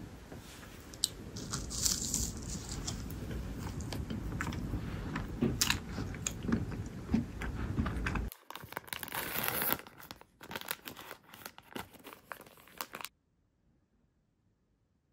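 Crinkling and tearing of a wrapper with crisp crunches and cracks of a monaka wafer being handled and bitten. A steady low background rumble runs under the crackling and cuts off suddenly about eight seconds in.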